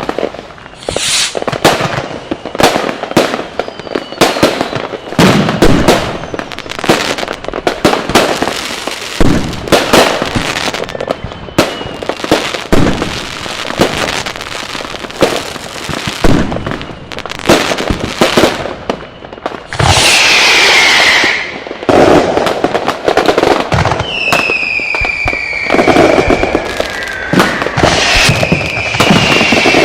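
Firecrackers going off in a dense, irregular barrage of sharp bangs. About twenty seconds in a loud hiss with a falling tone cuts through, and near the end several falling whistles from whistling fireworks sound over the bangs.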